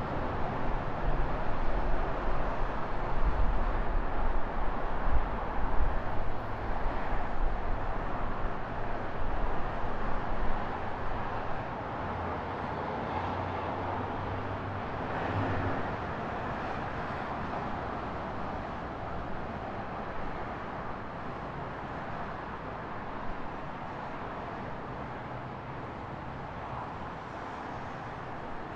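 Street traffic and road noise heard from a moving bicycle, a steady hiss and hum with an uneven, louder low rumble through the first ten seconds or so, then steadier and a little quieter.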